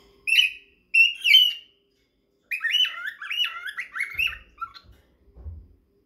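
Cockatiels calling: two short chirps, then a quick run of warbling whistled notes lasting about two seconds that drops lower at the end.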